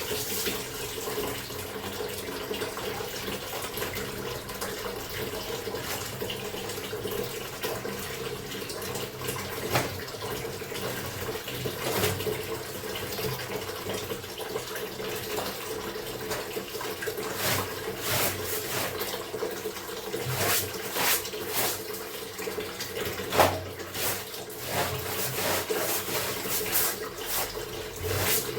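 Water running steadily from a tap into a basin or bucket. In the second half it is broken by repeated short splashes and knocks, the sound of clothes being hand-washed in the water.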